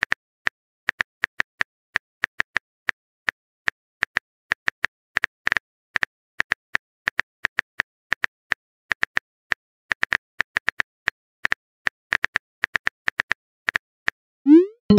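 Phone keyboard typing sound effect: quick, irregular taps, several a second. Near the end it gives way to a rising pop as the message is sent.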